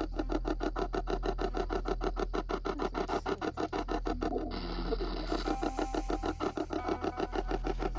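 Spirit box app on a phone sweeping through FM radio frequencies: radio static and broadcast fragments chopped into an even, rapid stutter, about ten cuts a second.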